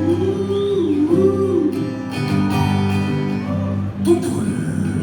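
Live band music with guitars playing, a melody line bending up and down in pitch.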